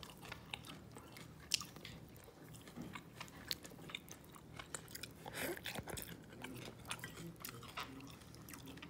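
Close-miked chewing of soft cooked fish: irregular wet mouth clicks and smacks, with a longer, louder noisy stretch a little past halfway.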